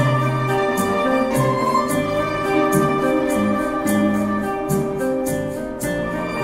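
Mandolin ensemble of mandolins, mandola and guitars playing together: held melody notes over a moving bass line, with crisp regular ticks running through.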